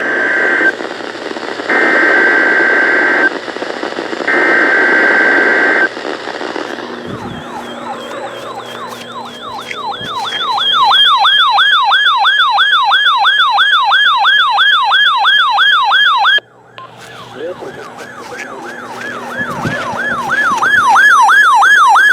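Emergency Alert System SAME header data tones, three buzzy bursts about a second long each, followed by an electronic siren yelping rapidly, rising and falling about three times a second. The siren breaks off for about a second partway through, then starts up again.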